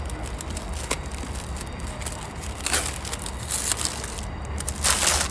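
Paper wrapping torn and crinkled by hand as a wrapped book is unwrapped: a few rustling tears, the loudest near the end, over a steady low rumble.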